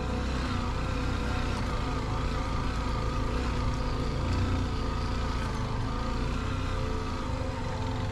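Honda XR150L dirt bike's single-cylinder engine running steadily as it pulls up a muddy slope.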